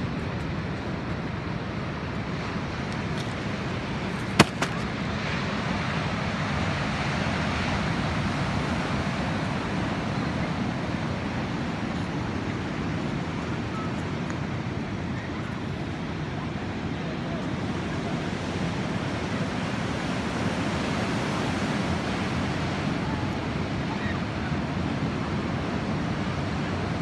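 Ocean surf washing steadily on the beach, a continuous rush of waves. One sharp click cuts through about four seconds in.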